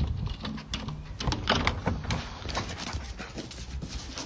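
Excited dog whining and whimpering, with many short clicks and knocks mixed in.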